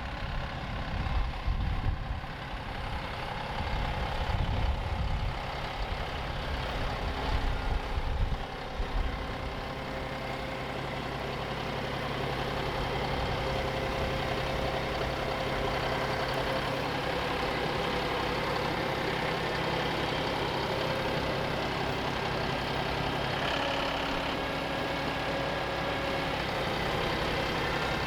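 John Deere tractor engine running. For the first several seconds it is mixed with an uneven low rumble, then it settles into a steady run.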